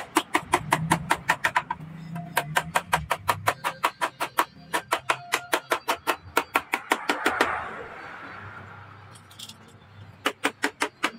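Hammer tapping a steel punch against a truck radiator's tank and header in quick light strikes, about five a second. The strikes come in runs, with a break of a couple of seconds after about seven seconds before they start again.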